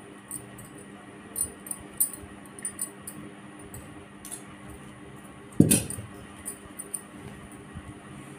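Scattered light clicks and clinks of hands hand-sewing the elastic ends of a fabric scrunchie with a needle and handling scissors, with one louder knock about five and a half seconds in.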